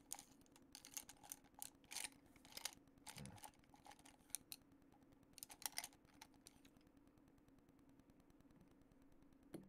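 Faint, scattered light clicks and taps over a low steady hum, thinning out after about six seconds.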